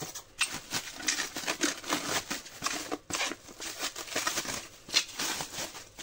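Clear plastic film on a tray of raw chicken pieces crinkling and rustling as it is handled and pulled off, a quick run of many small crackles.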